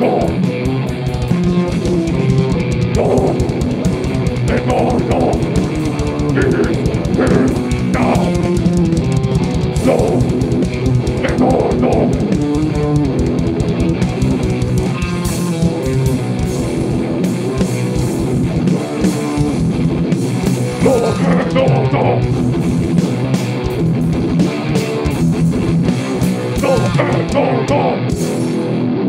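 Heavy metal band playing live: electric guitar over fast, dense drumming on a drum kit.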